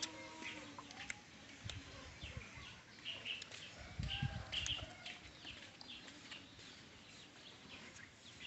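Faint ambient birds chirping in short repeated calls, with chickens clucking now and then and a few soft knocks.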